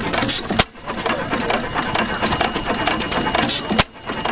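Antique stationary engine running with a fast, rhythmic mechanical clatter. There are two sharp clicks about three seconds apart, each followed by a brief dip in the sound.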